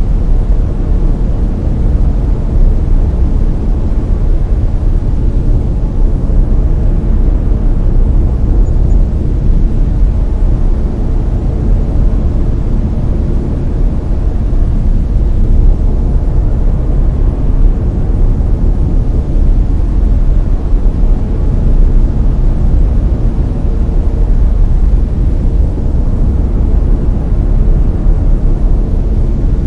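Brown noise: a steady, deep hiss, loudest in the low end and thinning out toward the highs, unchanging throughout.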